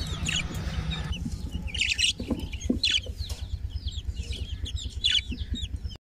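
A flock of caged budgerigars chirping and chattering, many short overlapping calls, over a low steady hum.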